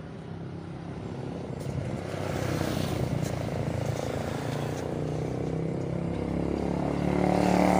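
A motor vehicle engine running nearby, growing steadily louder and loudest near the end.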